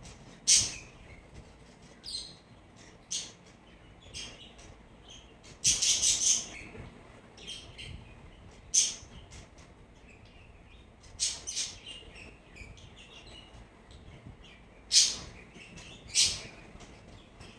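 Birds chirping: short, high chirps scattered irregularly, with a brief run of quick chirps about six seconds in.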